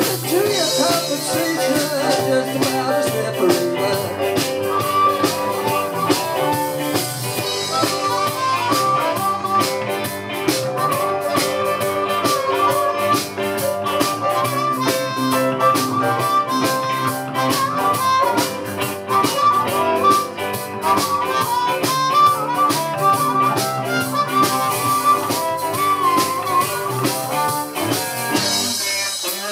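Live blues band: a harmonica plays a solo of bending, wailing notes over guitar chords and a steady drum beat.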